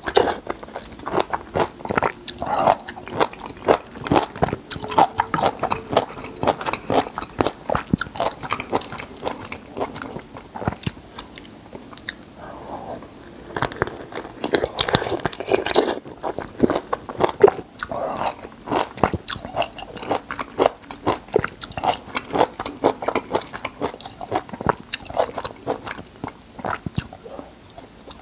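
Close-miked biting and chewing of a peeled lemon: wet, juicy mouth clicks and squishes in quick irregular succession, with a louder, wetter stretch about halfway through.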